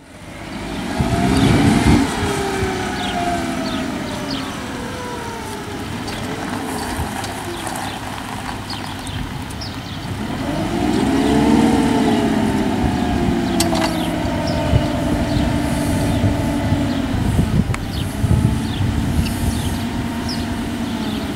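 LPG-fuelled TCM forklift engine running, revving up and back down about a second in and again around eleven seconds as the truck drives and raises its triplex mast.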